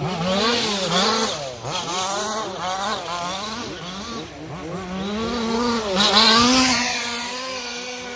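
Small combustion engines of RC off-road cars revving, their pitch rising and falling over and over as the throttle is worked. They settle into a steadier tone near the end.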